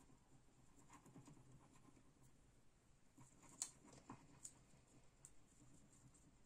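Near silence, with faint rustles of a paper cut-out being handled and a few soft clicks as liquid glue is squeezed onto it from a bottle; the sharpest click comes about three and a half seconds in.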